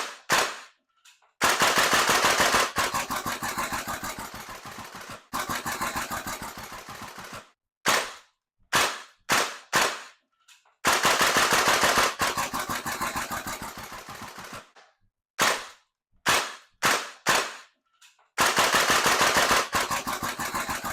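Gas blowback airsoft rifles firing. A few separate semi-auto shots are each followed by a long rapid full-auto string, and this happens three times. Each string grows somewhat quieter as it goes on.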